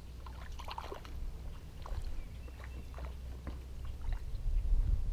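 Small splashes, trickles and drips of lake water as a hand dips and rinses beside a kayak, a little louder near the end.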